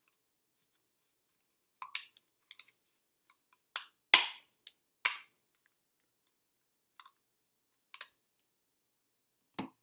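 Handheld stapler snapping shut as staples are driven through paper wrapped around a cardboard toilet paper roll: a series of about eight short, sharp clicks spread over several seconds, the loudest about four seconds in.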